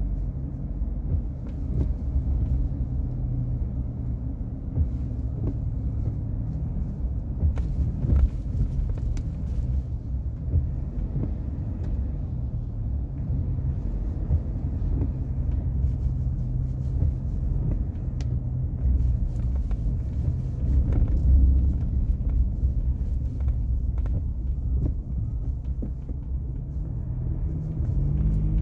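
Ford Wildtrak pickup truck driving, its engine and road noise a steady low rumble.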